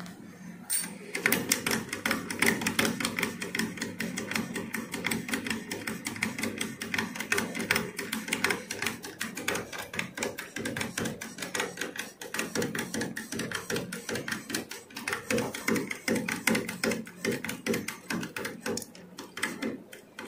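Hand feed pump on a model steam boiler being worked to pump water into the boiler: a fast, steady run of metallic clicks and clacks, several a second, starting about a second in.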